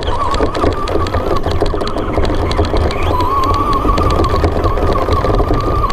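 Traxxas RC truck's motor running with a steady, wavering whine, with rapid mechanical clicking and a low rumble, heard from a camera mounted on the truck.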